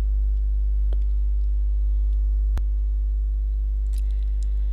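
Steady electrical hum with a faint buzz of higher steady tones over it, and two short clicks, about a second and about two and a half seconds in.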